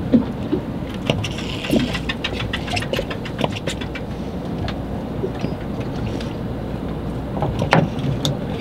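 Ambient sound aboard a drifting fishing boat: a steady low rumble with water noise against the hull, and scattered light clicks and knocks from tackle and fish handling, with one sharper knock near the end.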